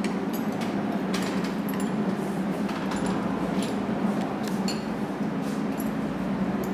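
Light metallic clicks and clinks of an open-ended spanner working a nut inside a steel spring vibration isolator hung on a threaded rod, over a steady low hum.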